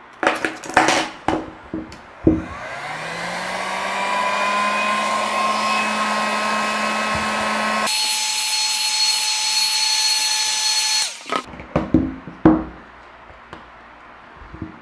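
Heat gun blowing on a phone's back glass to soften its adhesive. Its fan motor starts with a whine rising in pitch and then runs steadily. About eight seconds in the sound jumps to a higher pitch where the footage is sped up, and it cuts off suddenly a few seconds later. A handful of sharp clicks and knocks from handling the phone and tools come before and after it.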